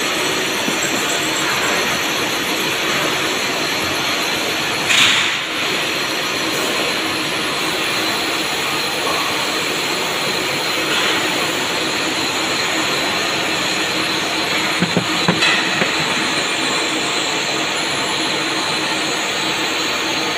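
Steady machine-shop noise from CNC lathes running, with a brief hissing rush about five seconds in and a few short knocks around fifteen seconds.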